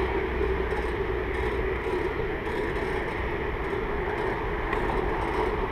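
Steady rolling noise of a bicycle ride on a paved cycle path, picked up by a GoPro mounted on the handlebars: an even rumble and hiss with a constant low hum.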